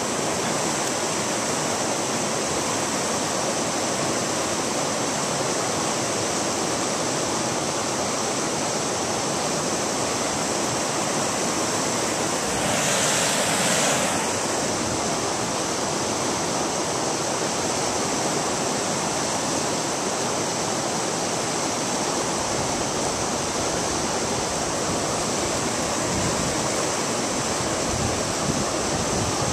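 Shallow brook water running steadily over rocks. The rush swells louder for about a second halfway through.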